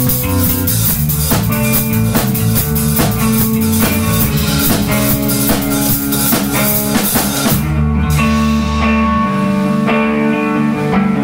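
A rock band plays live: electric guitar, bass guitar and drum kit. About three-quarters of the way through the drums and cymbals stop, and the guitar and bass ring on.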